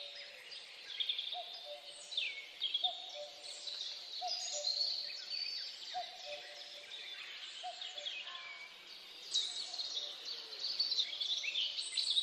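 Many birds chirping and singing together, with a short, lower call repeating about once a second.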